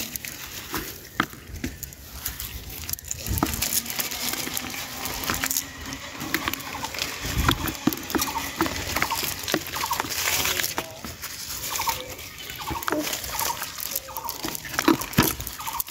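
A cast net full of dry leaves rustling and crackling as small fish are picked out of it by hand and dropped into a plastic bucket, with irregular wet pattering, slapping and light taps.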